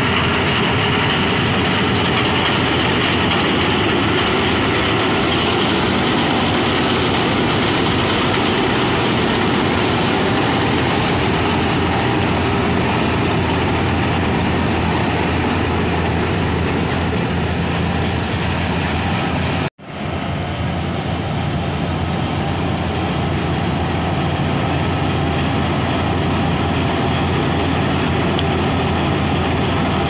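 Swaraj combine harvester running steadily as it cuts and threshes rice: its diesel engine and threshing machinery make a loud, constant mechanical din. The sound drops out for an instant about two-thirds of the way through.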